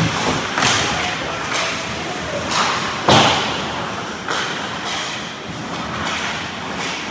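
Ice hockey play in a rink: a string of sharp knocks and thuds from sticks, puck and boards, the loudest about three seconds in and ringing on in the arena, over a steady noisy background.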